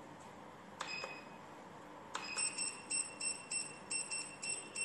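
Wireless coaster pagers' buzzers beeping. There is a click and a single short beep about a second in, then another click and a quick run of about a dozen high beeps in uneven pairs over the last two and a half seconds. This is the buzzer signal that a pager's registration has succeeded.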